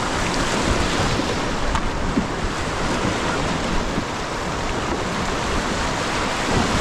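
Whitewater rapids rushing and churning around a canoe as it runs through them: a steady, loud roar of water.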